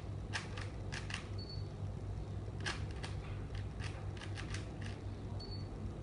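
Plastic Rubik's cube being turned by hand: irregular quick clicks, singly and in short runs, as the layers are twisted. A steady low hum lies underneath.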